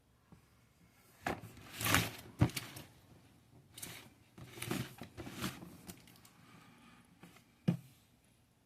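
Handling noises: a string of irregular knocks, clicks and short scrapes and rustles as objects are picked up and set down, with sharp knocks about two and a half seconds in and near the end.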